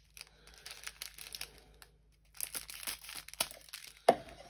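Clear plastic bags of diamond-painting drills crinkling as they are handled and cut open, in scattered crackles with a short pause about two seconds in.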